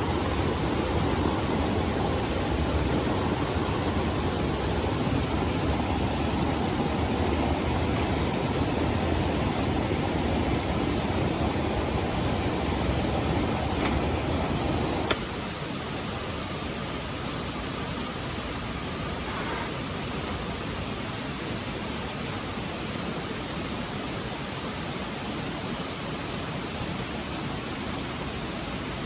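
Petromax HK500 kerosene pressure lantern burning with a steady hiss. About halfway through there is a click and the hiss drops abruptly to a lower, steady level.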